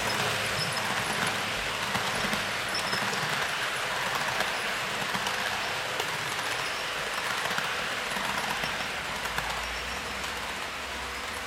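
HO-scale model train running past on a curved track: the EF58 electric locomotive's motor and the metal wheels of a string of model parcel cars make a steady rushing noise with faint clicks. The noise eases a little near the end as the train moves away.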